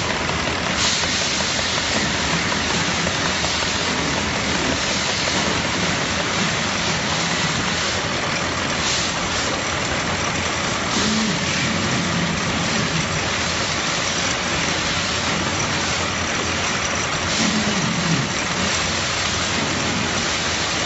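Production-line machinery running, a steady, unbroken mechanical noise.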